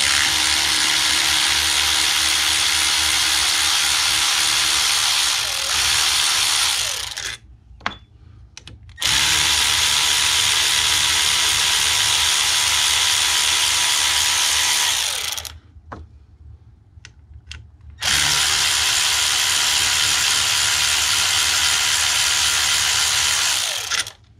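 Cordless electric ratchet spinning out the screws that hold a 3G alternator's case together. It runs in three stretches of several seconds each, with short pauses between.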